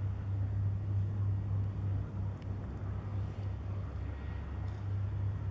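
Steady low drone of a pilot boat's engine running at speed, over a steady background hiss.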